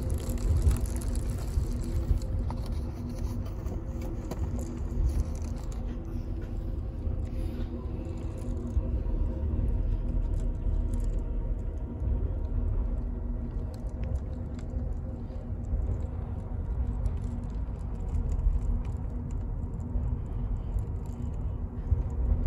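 Amtrak Superliner sleeping car running along the track, heard from inside the room: a steady low rumble with a constant hum over it.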